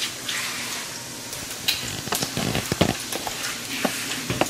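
Bacon and oil sizzling in a skillet on low heat, a steady hiss. Several sharp knocks and clicks come about two to four seconds in.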